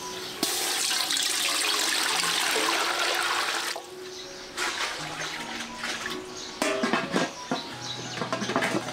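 Water pouring in a steady stream for about three seconds, starting just after the beginning, followed by a few light clatters about seven seconds in. Soft background music plays throughout.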